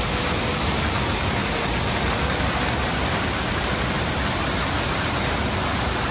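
Waterfall: white water rushing steadily down a steep rocky cascade, loud and even throughout.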